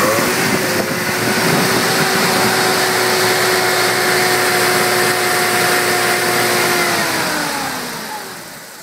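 Street-ported Mazda 13B rotary engine with a Weber IDA carburettor running at a steady raised speed on its first start-up, kept rich by hand since it has no choke. About seven seconds in the revs fall away and the sound fades, because no idle speed has been set yet.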